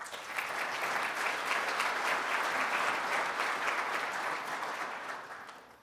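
Audience applauding, swelling in the first second and fading out near the end.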